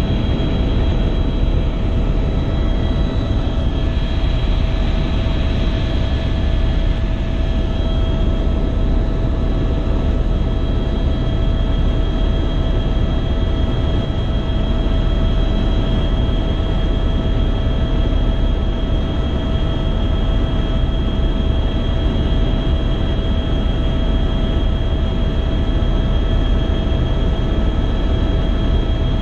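Helicopter in cruising flight, heard from inside the cabin: a loud, steady rotor and engine rumble with a constant high whine over it.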